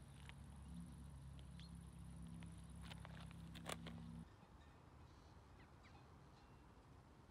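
Near silence: faint outdoor ambience with a few faint clicks, over a low steady hum that cuts off abruptly about four seconds in.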